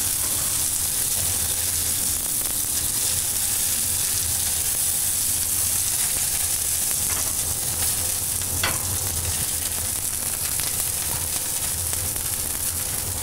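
Pork filet mignon medallions sizzling in a hot frying pan with a steady frying hiss. A couple of light metal clinks from the tongs come about halfway through as the pieces are lifted out.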